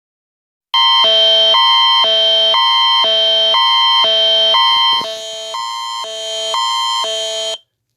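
Emergency alert attention tone of the Canadian Alerting Attention Signal type: two harsh chords alternating about every half second, starting just under a second in and cutting off abruptly near the end.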